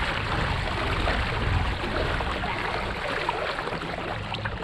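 Water rushing and splashing steadily along a pedal-drive fishing kayak moving at sprint speed, over a continuous low rumble.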